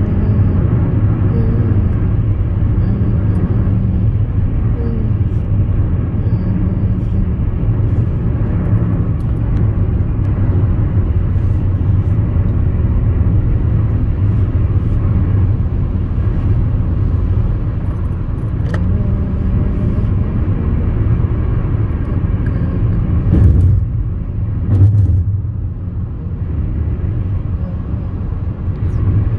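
Highway road noise inside a moving car: a steady low rumble of tyres and engine. Near the end come two short, louder bumps.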